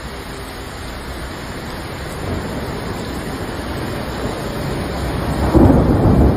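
Windstorm with heavy wind-driven rain: a steady rushing noise that grows louder, swelling into a deeper rumbling gust near the end.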